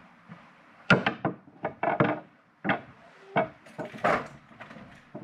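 A run of sharp knocks and clatters, then the rattle of a uPVC glazed door's handle and the door being opened, about four seconds in.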